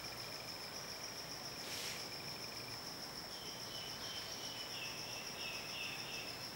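Faint, steady, high-pitched insect trill, pulsing evenly throughout. A second series of short, slightly lower calls joins in about halfway through.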